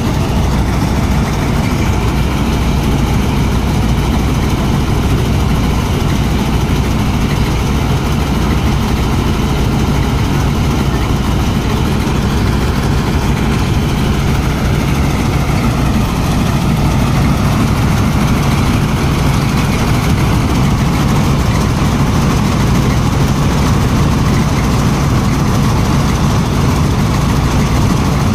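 Mahindra Arjun Novo 605 diesel engine running steadily under load, driving a combine harvester's threshing and grain-unloading machinery. The pitch sags slightly and recovers near the middle.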